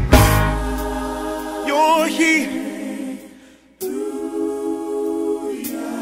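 Gospel song with voices: a sharp chord attack, a short wavering sung phrase about two seconds in, then a sustained vocal harmony chord.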